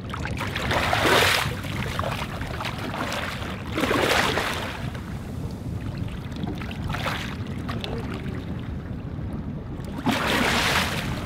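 A large tarpon held by the lip beside a boat thrashing in the water, giving several splashes, the loudest about a second in and near the end. A steady low rumble runs underneath.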